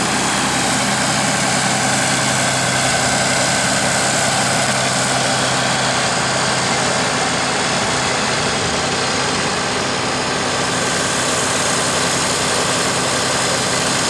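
A Cummins 5.9-litre inline-six diesel engine idling steadily, the power unit of an Al-Jon Super 400 logger/baler.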